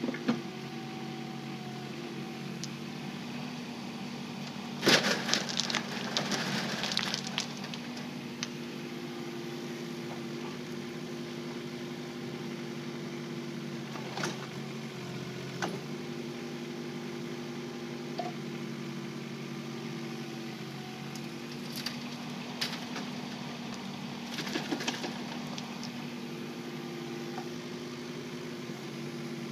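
Kubota K008-3 micro excavator's diesel engine running steadily, with a loud burst of rattling clatter about five seconds in lasting a couple of seconds, and a few shorter knocks and rattles later on.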